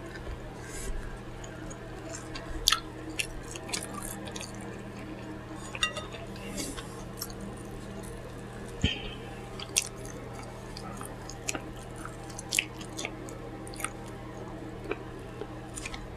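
Close-miked chewing of pizza, with scattered short wet mouth clicks and lip smacks. A steady low hum runs underneath.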